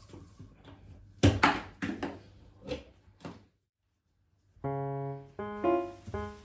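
A quick series of about six knocks and clatters, then a short silence, after which piano music begins with sustained chords about four and a half seconds in.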